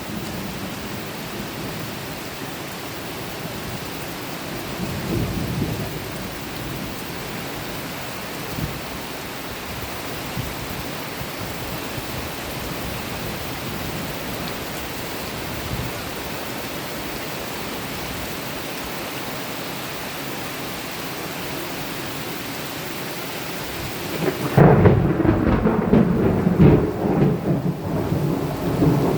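Steady heavy rain during a thunderstorm, with a low roll of thunder swelling briefly around five seconds in. About 24 seconds in, a much louder, deep thunder rumble sets in and carries on.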